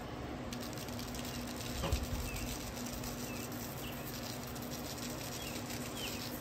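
Barbecue seasoning shaken from a shaker bottle, a soft patter of granules falling onto raw meatballs and butcher paper. A few faint bird chirps come and go over it.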